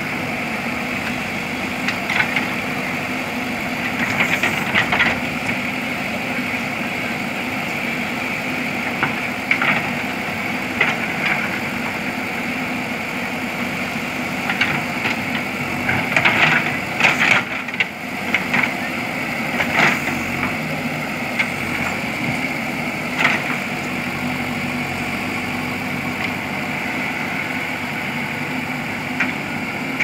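JCB 3DX backhoe loader's diesel engine running steadily while the backhoe works, with scattered sharp clinks and knocks of bricks against the bucket and each other, most of them bunched about halfway through.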